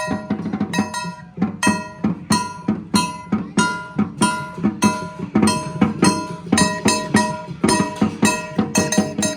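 Lion dance percussion band playing a fast, steady beat: drum strokes with metal cymbals or gongs ringing on each hit, about three strokes a second.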